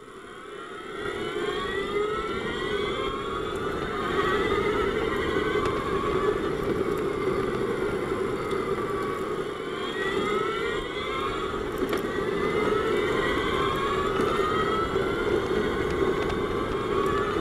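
On-board sound of a DevBot electric race car at speed. The electric drivetrain's high whine rises in pitch as it accelerates, drops about ten seconds in, then climbs again, over a steady hum and tyre and wind noise.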